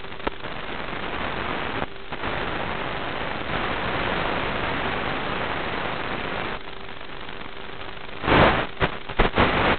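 Steady hiss of static from an analog FPV video link, recorded with the goggles' video. Near the end it breaks into loud, irregular crackles.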